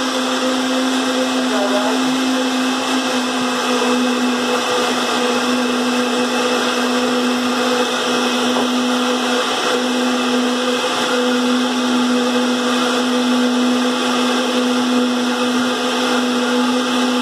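Electric countertop blender running steadily at one constant speed, its motor giving an even hum over the whirring of a liquid cucumber mixture in the jar.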